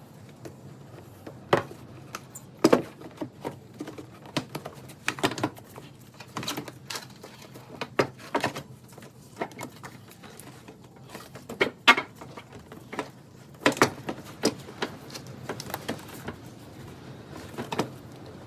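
Irregular clinks and knocks of hand tools and engine parts being handled, sharp strokes coming at uneven intervals with short pauses between them.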